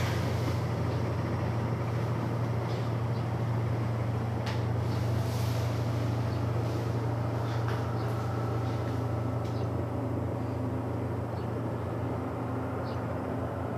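Diesel train engine running with a steady low drone that eases off slightly toward the end.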